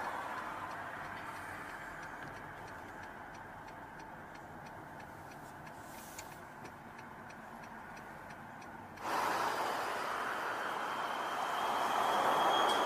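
City traffic noise, a steady rush of cars, fading slightly, with a faint rapid ticking of about three or four ticks a second in the middle. About nine seconds in, louder street traffic noise cuts in abruptly.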